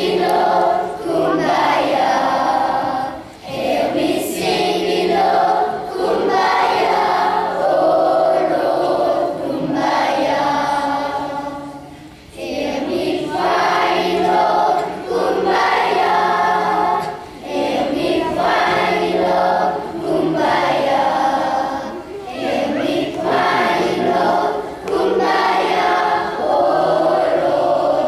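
Children's choir singing together, the phrases broken by short breaks.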